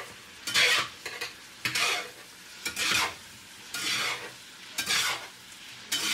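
Chicken pieces sizzling in hot oil in a skillet as they are stirred and turned with a spoon. A louder burst of sizzle and scraping comes about once a second with each stroke, over a steady fainter sizzle.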